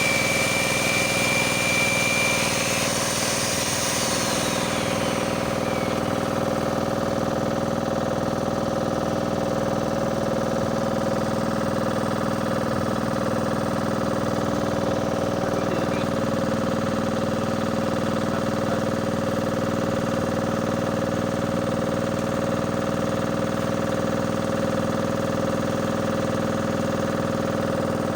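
An engine running steadily. In the first seconds there is also a high thin whine that stops about three seconds in, and a high hiss that fades out soon after.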